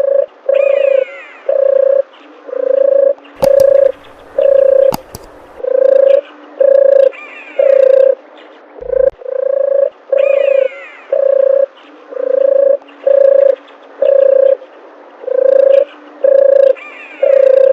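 A dove cooing over and over: short, low coo notes at one steady pitch, about one a second, many in close pairs, with smaller birds chirping faintly behind.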